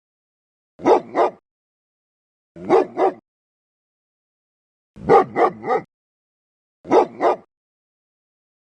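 Dog barking in short groups: two barks, then two, then three, then two, with dead silence between the groups.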